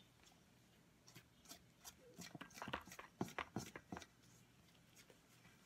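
Spatula stirring sticky dough in a stainless steel mixing bowl: a run of soft, irregular scrapes and knocks against the bowl from about a second in until about four seconds in.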